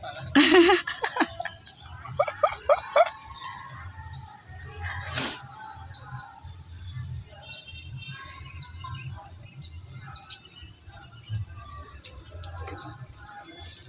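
A bird repeating short, high, falling chirps, about two a second, through the second half. Near the start a child gives a loud shout and a few more high cries, and a single sharp thud comes about five seconds in.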